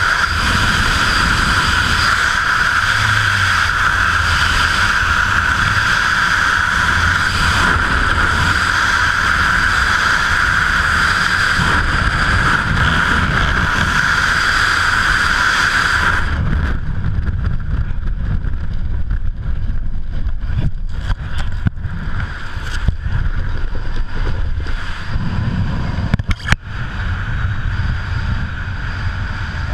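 Wind on the microphone during a parachute jump: a loud, steady rush of air that cuts off abruptly about sixteen seconds in. After that comes a lower, gusting wind buffet with scattered knocks, one sharp knock near the end.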